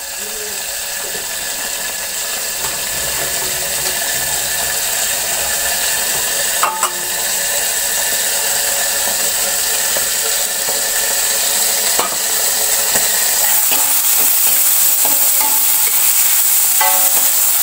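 Oil sizzling steadily in a lidded steel wok over a gas flame, frying chopped chilies and other sambal ingredients. There are a few light metal clicks, and near the end a spatula stirs the pan.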